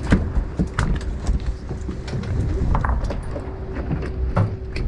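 Scattered short clicks and knocks of a fish and tackle being handled on a boat deck, over a steady low rumble and a faint steady hum.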